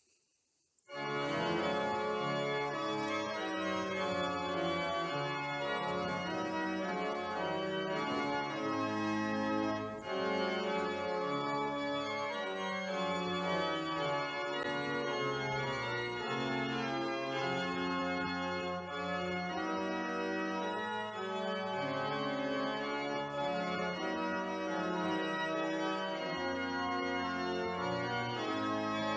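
Organ music starting about a second in with sustained chords: a closing voluntary after the dismissal.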